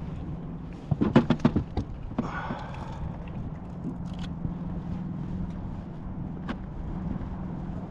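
A quick run of about eight knocks and thumps on a kayak, lasting under a second, about a second in, followed by a brief scrape, over a steady low hum.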